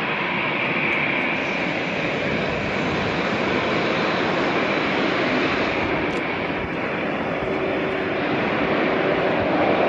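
Jet engines of an EVA Air Boeing 787-10 with GE engines, running as the airliner rolls along the runway: a steady, even rushing noise.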